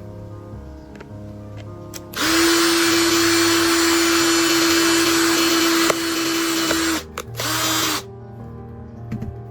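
Small electric power tool running at a steady speed for about five seconds with a steady whine. It stops, then runs again for under a second. Background music plays underneath.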